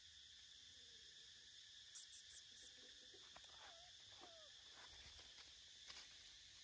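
Faint, steady insect buzzing in the background, with a few short high ticks about two seconds in and a couple of faint curving chirps around the middle.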